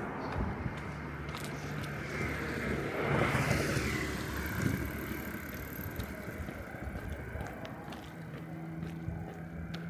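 A car passes close by about three seconds in, its noise swelling and then fading over steady street noise.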